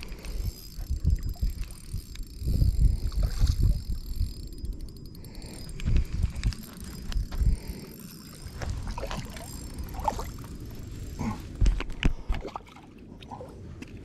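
Wind buffeting the microphone in irregular gusts of low rumble, with scattered small clicks and rustles of handling near the end.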